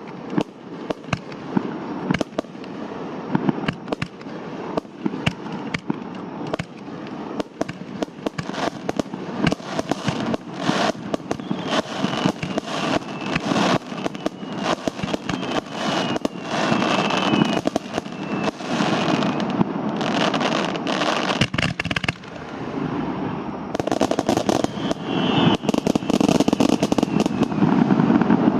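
Fireworks display: a rapid string of bangs from bursting shells that comes ever faster, with a faint falling whistle about halfway through, building to a nearly continuous barrage near the end.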